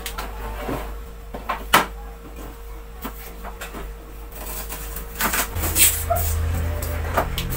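Meat cleaver knocking on a plastic cutting board while chopping a red onion: a few separate sharp knocks. A low steady hum comes in about five and a half seconds in.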